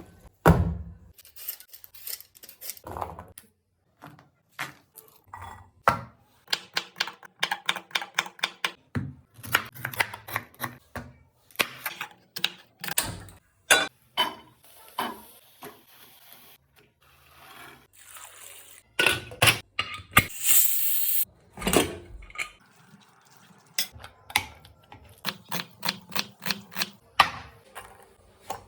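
Kitchen work sounds: runs of quick knocks and clicks of utensils against cookware and a board, with a brief hiss about two-thirds of the way through.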